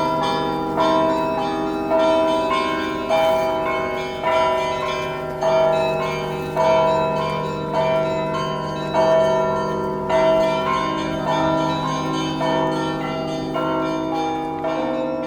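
Russian Orthodox monastery bells rung by hand: several bells of different pitches struck in a steady repeating pattern, a new stroke about every second, each ringing on over a deeper tone that hums underneath.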